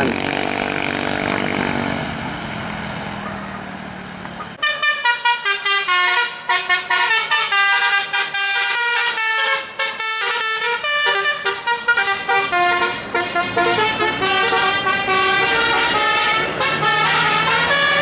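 A bus's multi-tone "telolet" Basuri horn plays a fast melody of stepping notes. It starts suddenly about four and a half seconds in and keeps playing. Before it, fading road traffic and engine noise.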